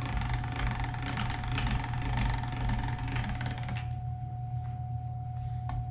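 Hand-cranked pasta machine rolling a sheet of pasta dough through its steel rollers, the crank gearing rattling steadily, stopping suddenly about four seconds in. A single sharp click follows near the end over a steady hum.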